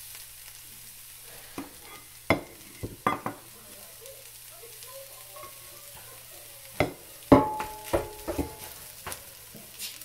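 A wooden spatula knocks and scrapes in a frying pan as cooked chana dal is stirred, with a faint sizzle underneath. It makes a handful of sharp clacks, and the loudest, about seven seconds in, has a short ring.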